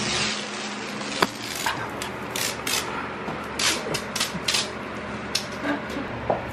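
Orange painter's tape being pressed and smoothed by hand along the corner between wall and ceiling: a series of short scratchy rubs and crackles, with a sharp tap about a second in.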